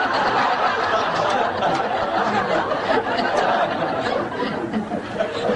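Audience laughing together, a steady wash of many voices laughing that goes on for several seconds.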